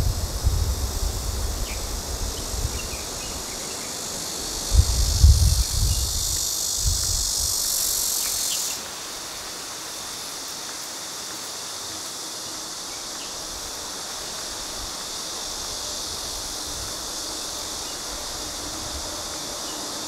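Steady high-pitched chorus of insects in the mangrove. The louder part cuts off suddenly about nine seconds in and a fainter chorus carries on. Low rumbling gusts come near the start and again about five seconds in.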